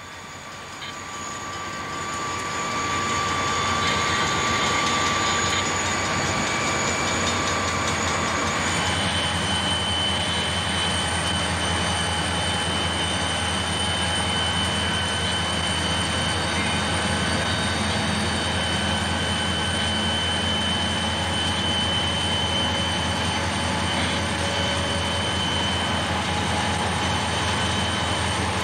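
CSX diesel locomotives of a coal train passing close by, a steady rumble that builds over the first few seconds and then holds level. Steady high-pitched whines run over it and shift in pitch about eight and a half seconds in.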